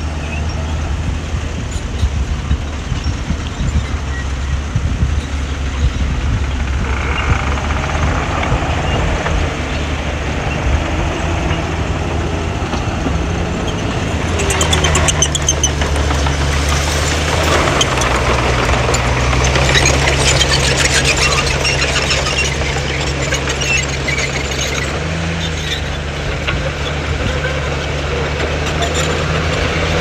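Heavy construction machine's diesel engine running steadily, its pitch dropping about eighteen seconds in and briefly rising again near twenty-five seconds. A louder metallic clatter and rattle builds through the middle.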